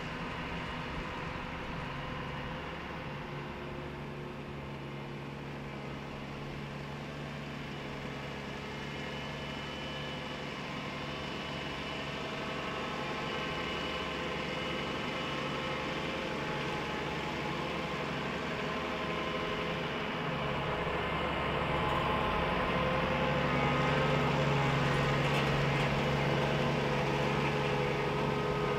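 Tractor engine running steadily under load as it pulls a mounted boom sprayer across the field, growing gradually louder as it approaches and passing closest near the end.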